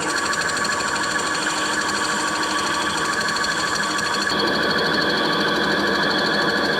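Metal-working lathe running steadily with a fast, even mechanical whir while turning wood; its tone shifts slightly and it gets a little louder about four seconds in.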